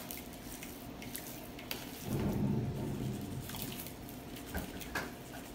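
Hands rubbing seasoning into raw pork slices in a bowl while a plastic shaker is shaken over them: soft wet squishing and light taps. A low rumble lasts about a second, starting two seconds in.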